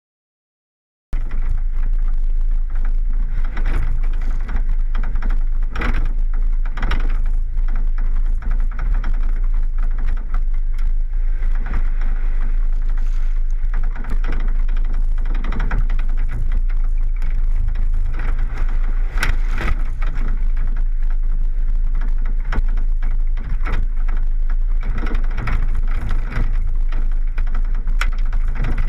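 Wind buffeting and road noise on a hood-mounted camera as a vehicle drives a gravel road: a loud, steady rush with a deep rumble and scattered sharp ticks. It starts abruptly about a second in.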